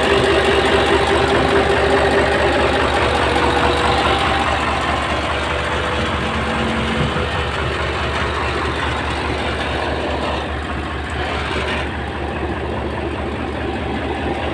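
Mitsubishi Fuso truck's 10DC9 V10 diesel engine idling steadily after a new fan blade has been fitted, with a whine in the first few seconds that fades out.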